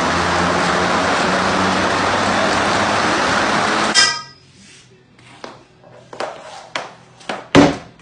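Skating treadmill running under a skater, a loud steady rush with a low hum, cut off suddenly about four seconds in. Then a hockey stick and puck clicking on plastic dryland tiles, scattered sharp taps with one loud crack near the end.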